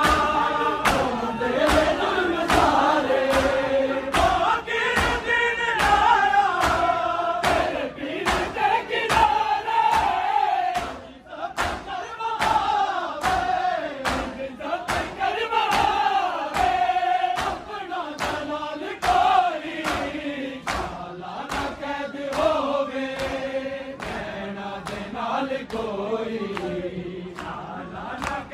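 A group of men chanting a Punjabi noha, a Muharram mourning lament, in voices alone, with sharp hand-beats about twice a second from chest-beating (matam) keeping the rhythm.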